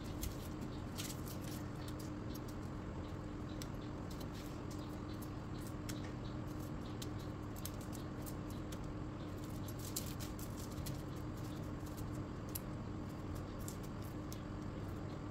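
Knife blade picking and scraping at shallots as they are peeled by hand, making small irregular clicks and papery crackles of dry skin, over a steady low hum.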